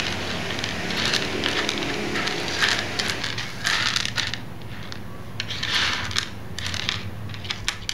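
Mosaic pieces being cut and broken: a run of sharp clicks and short crunches that come in clusters every second or two, over a faint steady low hum.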